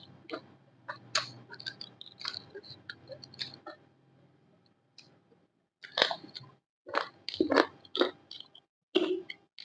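Close-up chewing and crunching of crisp food, a run of short sharp crunches that goes quiet briefly in the middle, then louder bites near the end.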